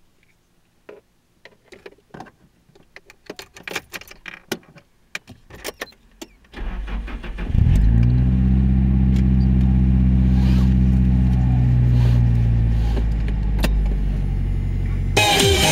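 Car keys jangling and clicking for about six seconds, then the car's engine is started and settles into a steady idle. Near the end a louder, noisier sound comes in over the idle.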